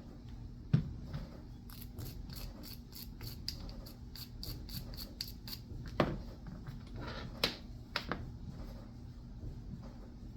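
Hands cleaning and handling the parts of a field-stripped Rock Island Armory .45 ACP pistol. A knock, then a quick run of about twenty scratchy strokes over a few seconds, then three more knocks as parts are handled and set down.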